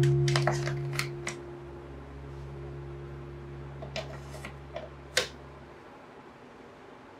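Light clicks and knocks of a charger and its cable being put into a fabric storage box with bamboo dividers, then the box's bamboo lid set down on it, with a sharp tap about five seconds in. Under the first half, a low held note of background music fades away.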